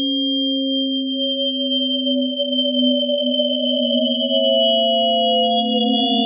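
Synthesized sine tones sounding a logistic map orbit: several steady electronic pitches, one slowly gliding upward. About four seconds in, that tone splits into two pitches that draw apart, and near the end the lowest tone splits too, as the orbit doubles its period.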